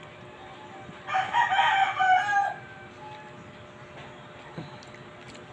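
A rooster crowing once, a single drawn-out call of about a second and a half, starting about a second in.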